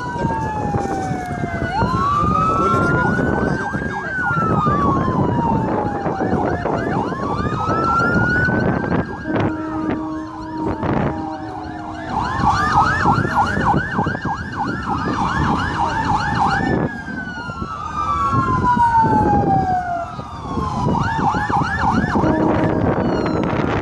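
Several electronic sirens sounding at once: a slow wail rising and falling about every three seconds, overlapped by a faster yelping siren. A steady horn blast sounds about halfway through and again near the end, over a constant rumble of boat engines and water.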